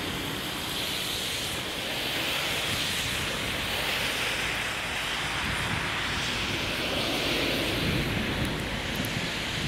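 A car driving through slush on a snow-covered road, its tyres giving a steady hiss, mixed with wind noise on the microphone.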